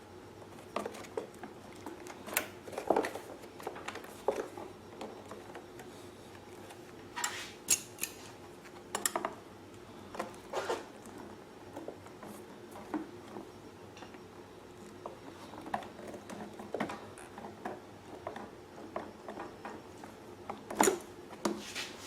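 Hand-work sounds: scattered light clicks, taps and rubbing as a rubber breather hose is worked onto the valve-cover spigot of a small inverter generator engine.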